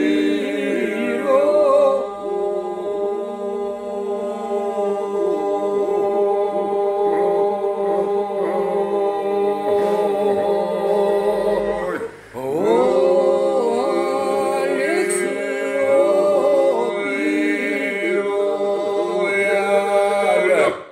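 Unaccompanied Albanian polyphonic singing in the Vlora style: a lead voice and a second, answering voice weave over a steady held drone (iso) from the group. The singing breaks off briefly about twelve seconds in, then the next phrase starts.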